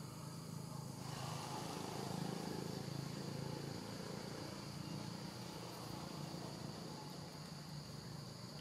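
A steady, high-pitched chorus of insects trilling in the forest, growing louder about a second in, over a low steady rumble.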